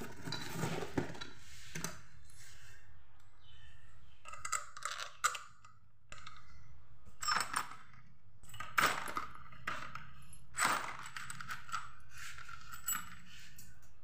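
Small steel bolts and washers clinking against each other and the floor as they are picked through by hand: several separate metallic clinks, each with a short ring.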